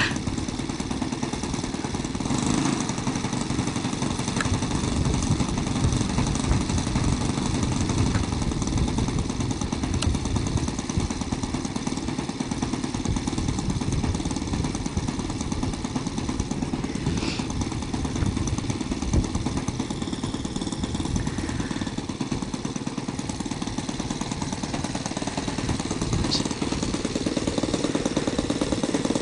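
Saito 1.25 single-cylinder four-stroke glow engine on a model airplane running steadily on the ground with an even throb, a little louder near the end.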